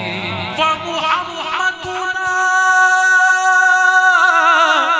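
A man singing a devotional naat in a loud, ornamented voice. About two seconds in he holds one long steady note, which breaks into a wavering vibrato near the end.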